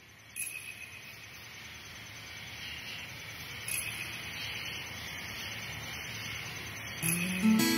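Steady hiss of water in a river pool where people are bathing, slowly growing louder, with two brief knocks. Acoustic guitar music comes in near the end.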